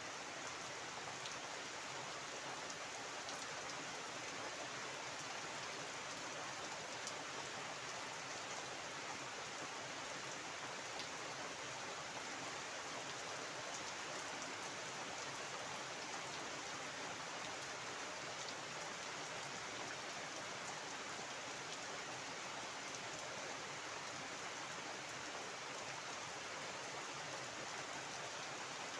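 Heavy rain falling steadily on standing water and garden foliage, a dense even hiss with scattered drop ticks.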